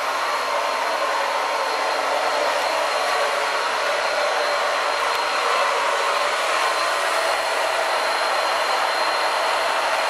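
Well drainage pump running steadily as it pumps spring water out of the well, a constant even rushing noise.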